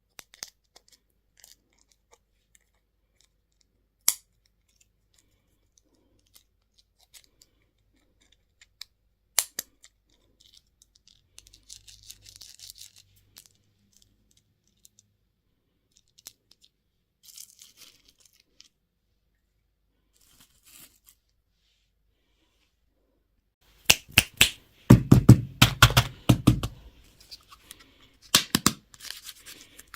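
Candy and toy packaging being handled and unwrapped: a few sharp clicks and faint rustles, then, about 24 s in, a loud burst of wrapper tearing and crinkling, with a second burst near the end.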